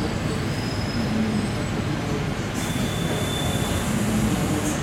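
ЭП2Д electric train running, heard from inside the carriage: a steady low rumble throughout. About halfway through, a high hiss sets in with a thin, high squeal for about a second, then stops just before the end.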